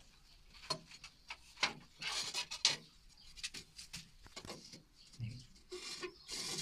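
Ceramic wall tiles being handled and set with a trowel in mortar: scattered sharp clicks and knocks of tile and tool, with a short scraping about two seconds in and again near the end.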